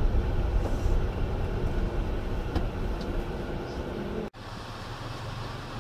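Engine and road rumble heard from inside a car moving slowly. About four seconds in the sound cuts off abruptly and comes back as a quieter, steady engine hum.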